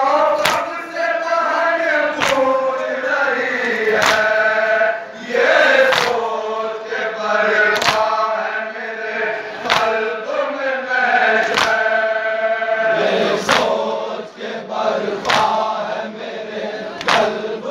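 A large group of men chanting a nauha, a Shia lament, in unison. A sharp slap of matam, hands striking chests together, falls on the beat about every two seconds.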